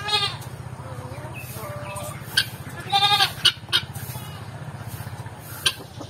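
Backyard chickens calling: a wavering, bleat-like call at the start and a second one about three seconds in, with a few short sharp clucks between, over a steady low hum.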